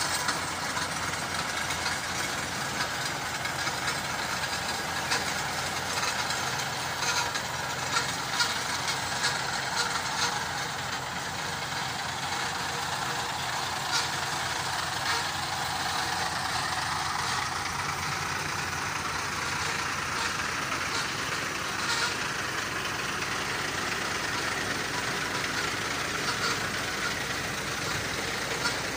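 Heavy truck engine running steadily, with scattered small knocks and clicks over it.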